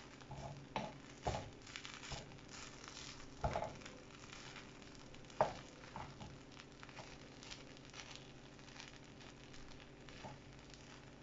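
Wooden spoon stirring and turning over thick, moist rice in a stainless steel pot, with a few sharp knocks of the spoon against the pot in the first half.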